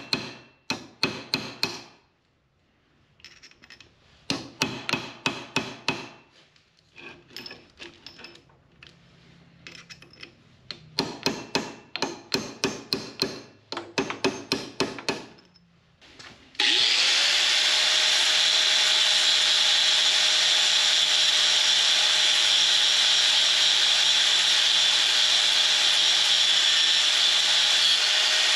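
Hammer striking a pin punch to drive the pin out of a steel roller chain link: bursts of quick metallic blows with short pauses. A bit over halfway through, an angle grinder spins up to speed and then runs steadily with a high whine.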